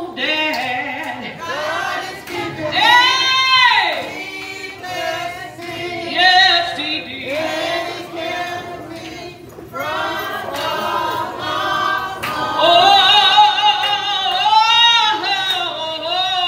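A small choir singing a gospel song, with long held, sliding notes.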